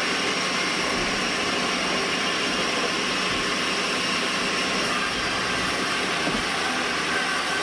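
Band sawmill running with a steady, even noise.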